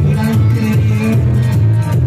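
Loud music with a heavy bass line, blasting from car sound systems built up with stacks of speaker boxes.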